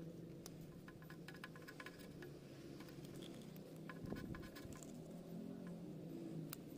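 Faint scattered clicks and small taps of a plastic power-outlet housing and scooter body parts being handled and fitted, over a steady low hum.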